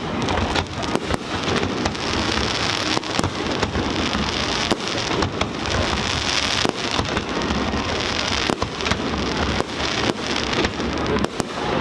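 Fireworks display: a dense, steady crackle with many sharp bangs mixed in throughout.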